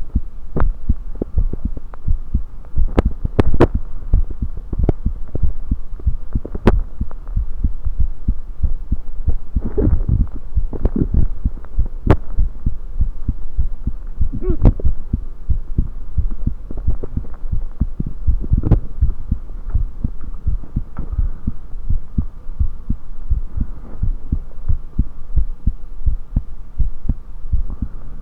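Human heartbeat picked up through a USB electronic stethoscope: steady, regular low thumps over a faint steady hum, broken by a few sharp clicks and some brief louder swells.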